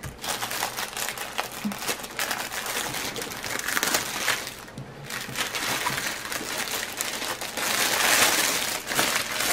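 Clear plastic wrap crinkling and crackling as hands pull it off a storage case, with a short lull a little under halfway through and the loudest crinkling near the end.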